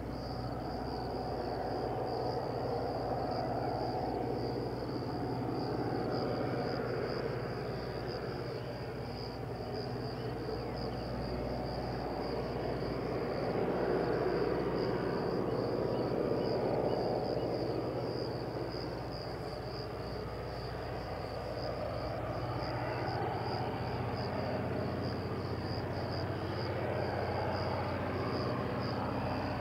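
Crickets chirping in a steady, high, rapidly pulsing trill, over a low rumble that swells and fades slowly.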